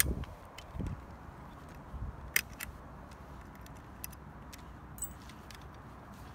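Airsoft AEG parts being handled while the gun is taken apart: a few light metallic clicks and taps, the sharpest a pair about two and a half seconds in, after some dull handling thumps in the first second, over a faint steady hiss.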